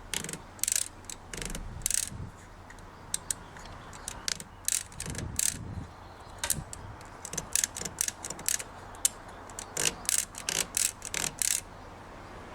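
Imperial 55 manual typewriter's platen and line-spacing mechanism worked by hand, giving many sharp, irregular ratchet clicks, some in quick runs.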